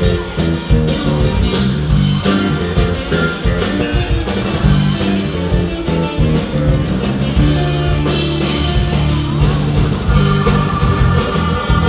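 Live rock band playing an instrumental passage led by guitar, over bass and a steady drum beat.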